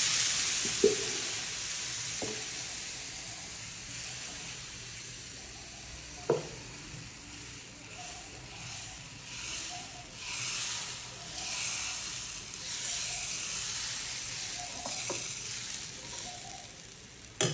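Water sprinkled onto a hot nonstick pan hissing and sizzling into steam, fading over several seconds, with a few sharp knocks of a ladle against the pan. Then moong dal batter sizzles on the pan in repeated swells as the ladle spreads it round in circles.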